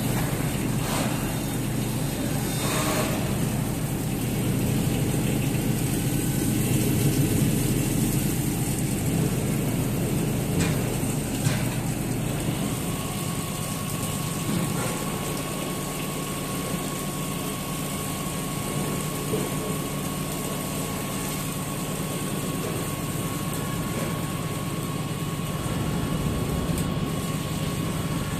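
ALCX52Y CNC turn-mill lathe cutting a spinning workpiece under flood coolant: a steady machine hum of spindle, coolant and cutting noise. A thin steady whine joins about halfway through.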